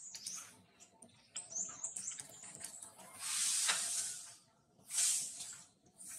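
Dry leaves rustling and crackling as macaques move about on leaf-strewn ground, with two louder hissing rustles, the first about three seconds in and lasting about a second, the second shorter about five seconds in.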